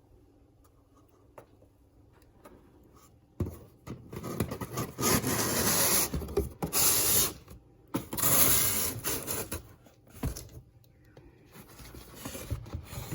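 Paper and cardboard packaging being handled and opened: rustling and scraping that starts about three seconds in, is loudest in two long stretches in the middle, and turns to softer handling noises near the end.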